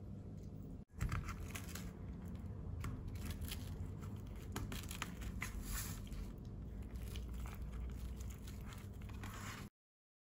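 Soft, irregular rustling and crinkling as a filled tortilla wrap is folded and rolled up by hand on a steel plate, stopping suddenly near the end.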